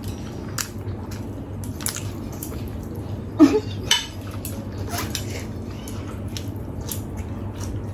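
Eating utensils clicking and scraping against plates of noodles, in scattered irregular clinks. A brief voice sound comes about three and a half seconds in.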